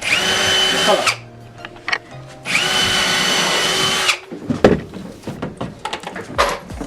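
Power drill driving screws into 2x4 framing lumber, run in two bursts of about one and one and a half seconds, its motor whine rising as each starts and dropping as it stops. A few short knocks follow.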